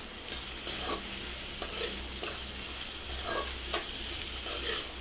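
Metal spoon scraping and stirring vegetables in an aluminium kadai, about one scrape a second, over a steady sizzle of frying. The ground spices are being fried into the vegetables.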